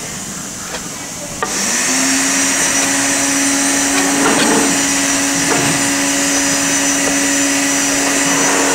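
A knife chopping cooked steak on a wooden cutting board with a few sharp taps. About a second and a half in, a loud electric motor starts, its hum rising quickly to a steady pitch with a strong hiss above it, and runs on while faint chopping taps continue.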